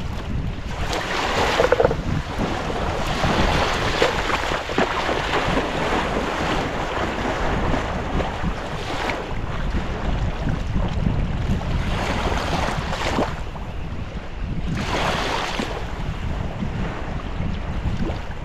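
Small waves lapping and washing on a sandy river beach, the wash swelling up every few seconds, with wind rumbling on the microphone.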